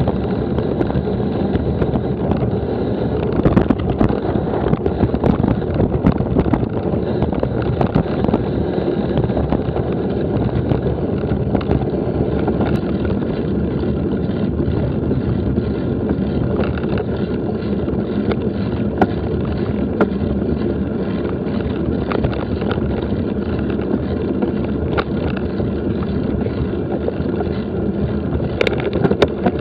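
Wind buffeting the microphone of a bike-mounted action camera while the bicycle rolls steadily, with tyre rumble and scattered rattles and knocks from the bike over a rough surface.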